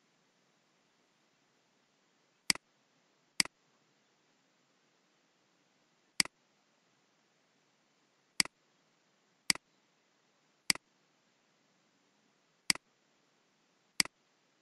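Computer mouse button clicks, eight sharp ones at uneven intervals, each a quick double tick of press and release. Faint steady hiss lies between them.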